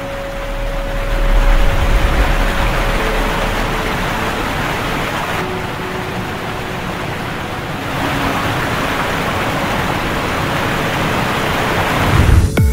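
Steady rushing of whitewater pouring over a low-head river dam and churning below it, with a few faint music tones underneath.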